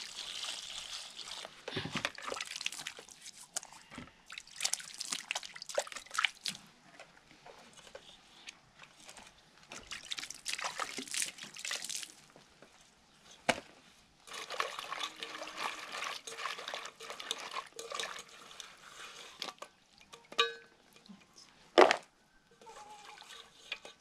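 Water poured from a plastic bucket and scoop into a basin and shelled tamarind washed by hand in it, splashing and sloshing in several spells. A few sharp knocks of the containers, the loudest about two seconds before the end.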